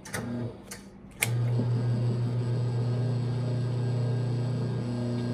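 Electric wire stripper machine: a few clicks and short bursts of motor hum, then about a second in it switches on and runs with a steady low hum.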